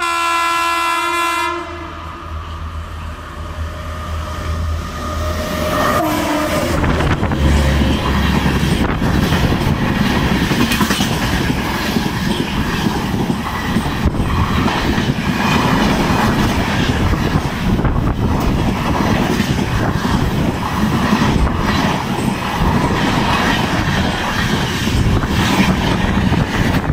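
A WAP7 electric locomotive sounds its horn in one loud blast of about a second and a half, then the express runs through at speed, its coaches rushing past with rhythmic wheel clatter on the rails.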